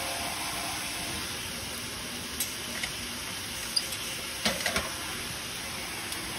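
Steady hiss of running water, with a few light clicks and knocks, most of them between about two and a half and five seconds in.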